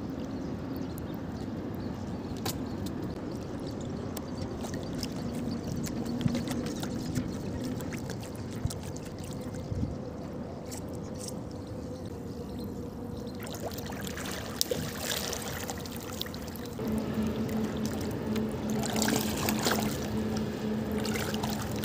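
Water trickling and sloshing around a small wooden boat as a line is worked over the side, with scattered small knocks of handling. A faint steady hum runs underneath and grows louder a few seconds before the end.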